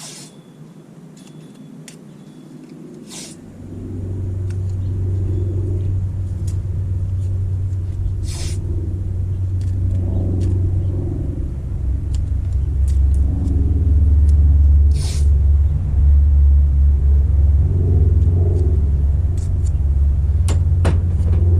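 A loud, low rumble sets in about four seconds in and runs on unevenly, with a few sharp clicks scattered over it.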